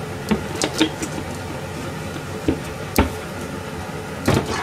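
Scattered knocks and clatters of containers and kitchen things being handled on a stainless steel counter, the sharpest about three seconds in, over a steady background hum.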